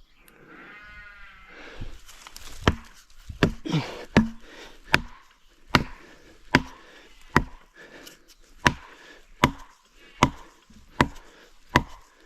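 Felling wedge being driven into the back cut of a tree with steady hammer blows, about thirteen sharp strikes at a little over one a second, tapping the tree over toward its fall. A short pitched call comes just before the strikes begin.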